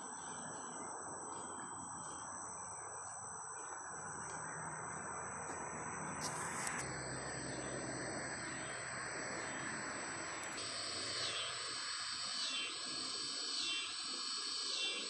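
Cicadas and other insects calling: steady high-pitched buzzing, with a brief hiss about six seconds in. A rhythmic pulsing call starts about ten seconds in, repeating roughly once a second.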